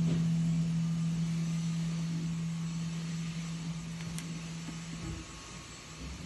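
Final acoustic guitar chord of a song ringing out and slowly fading, its low note dying away about five seconds in.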